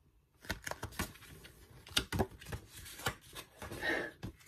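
Paperback picture book being handled: its pages rustle and flap as it is turned over and closed, a string of irregular papery clicks starting about half a second in.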